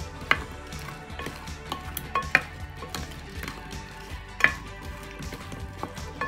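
Wooden spoon knocking and scraping against a glass baking dish while tossing raw potato chunks, with a string of sharp clacks, the loudest about two and four seconds in. Background music plays underneath.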